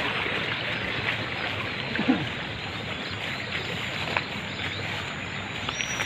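A steady outdoor hiss, with a few faint clicks and one brief sliding sound about two seconds in.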